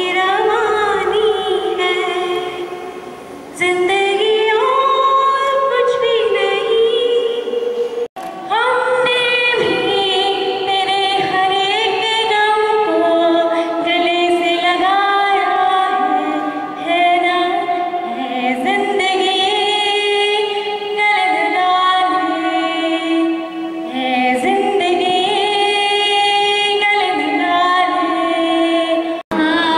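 A woman singing solo and unaccompanied into a microphone, with long held and gliding notes. About eight seconds in there is an abrupt cut to a different woman singing another song.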